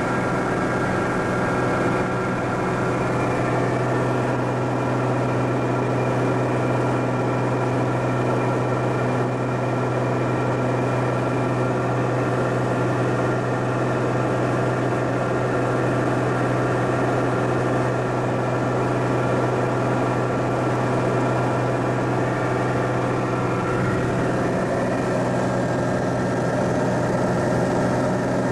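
Piper Malibu Mirage's turbocharged six-cylinder Lycoming engine and propeller droning steadily in high-altitude cruise at 2500 RPM, heard inside the cabin.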